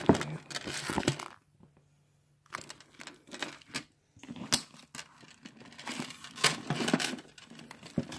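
Crinkling and rustling of a handbag's protective wrapping as the bag is handled, in irregular spells with a pause about one and a half seconds in. There is one sharp click about four and a half seconds in.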